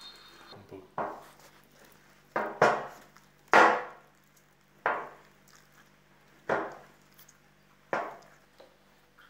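Hands mixing and pressing sticky bread dough in a plastic bowl: about seven sharp knocks and slaps, irregularly a second or so apart, as the dough is pushed against the bowl. The loudest comes near the middle.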